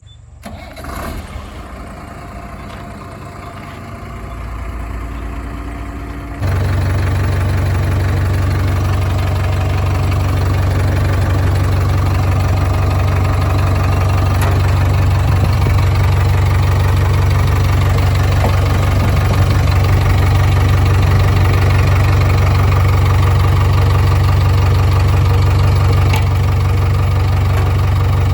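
JCB 3DX backhoe loader's diesel engine starting and running. About six seconds in it suddenly gets much louder, then runs steadily with a strong low hum.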